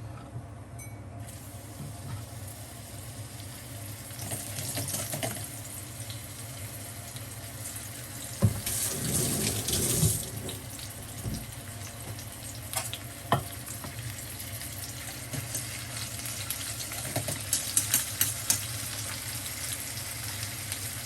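Water running in a kitchen, a steady hiss with a louder gush about eight and a half seconds in, and a few light clinks of cookware in the second half.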